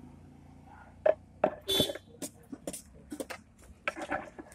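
Quick irregular clicks and clinks of pani puri being made: puri shells cracked open by hand and steel utensils knocking against steel bowls, starting about a second in, with one longer ringing clatter.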